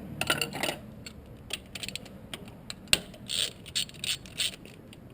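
Hands working a plastic cover and its clips loose in a car's engine bay: a run of irregular clicks, knocks and short rattles, with one sharp click about three seconds in.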